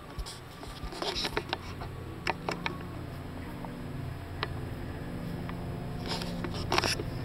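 Scattered footsteps, knocks and clothing rustle as a person walks through a house, over a low steady hum. A small cluster of sharp clicks comes about six to seven seconds in.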